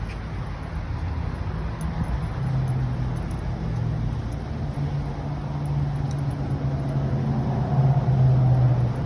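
A steady low mechanical hum, like a running motor or engine, shifting a little in pitch and growing slightly louder near the end.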